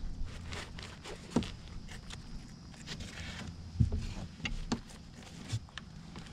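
Scattered light knocks and clicks with soft rustling, one sharper knock a little before the four-second mark, over a faint low hum.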